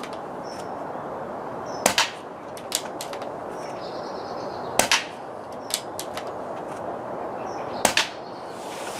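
Air rifle firing three shots about three seconds apart. Each shot is a sharp crack closely followed by a second crack, with lighter clicks between the shots.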